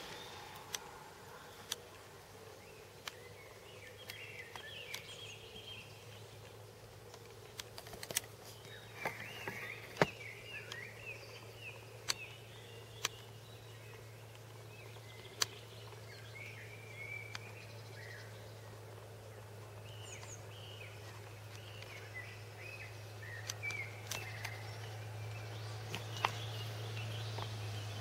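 Small birds chirping on and off over a faint outdoor background, with a few sharp clicks scattered through. A steady low hum swells toward the end.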